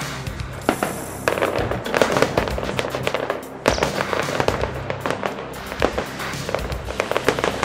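Aerial firework shells bursting in quick succession, with many sharp bangs, over background music.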